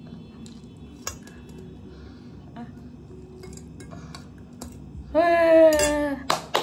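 Spoon and fork tapping lightly on plates as a small child is fed noodles. About five seconds in, a woman's voice calls out one long drawn-out vowel, the loudest sound here, and clapping starts right at the end.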